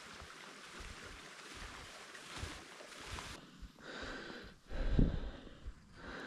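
Wind buffeting the camera microphone, with a strong low gust about five seconds in, over soft footsteps in snow.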